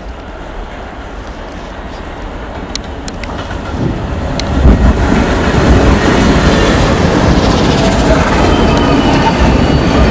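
Freight train's diesel locomotives approaching and passing close by. The engine rumble swells steadily and is loudest as the lead unit goes by a little before five seconds in, then holds as the trailing locomotive and cars roll past with wheel and rail noise.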